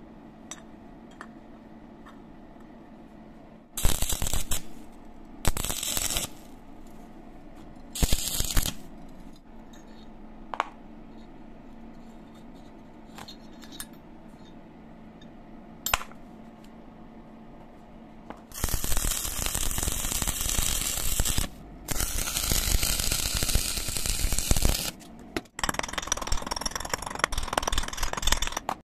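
Electric arc welding on steel flat bar: three short bursts of arc crackle as tack welds are struck, then two long runs of steady crackling as the joints are welded along the base. Near the end, a chipping hammer works at the fresh bead to knock off the welding slag.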